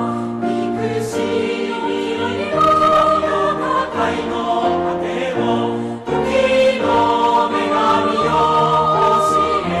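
Background music: a choir singing a Japanese choral song in sustained multi-part harmony, the chords changing every second or so.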